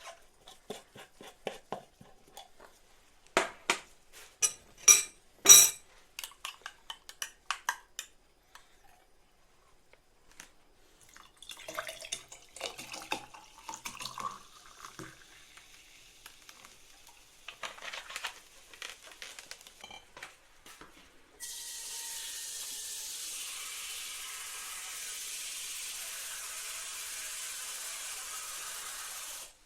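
Dishes or glassware clinking and knocking, then from about twenty seconds in, a kitchen tap running steadily into a sink.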